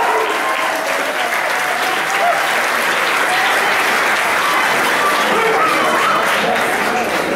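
Audience applauding steadily, many hands clapping at once, with voices faintly mixed in.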